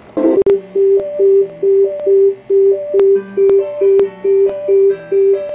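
Music: one note repeated a little over twice a second, with a higher note answering it now and then, over sharp ticking percussion.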